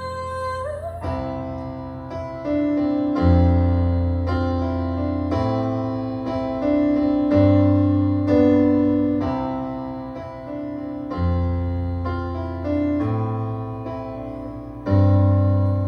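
Piano playing the instrumental ending of a song: sustained chords over low bass notes, a new chord struck every second or two. A held sung note dies away about a second in.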